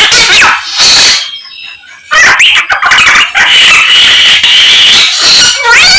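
Samyong (Chinese hwamei) singing loudly: a fast, varied song of rising and falling whistled phrases and harsh notes that imitate the calls of other birds, with a short pause about a second in.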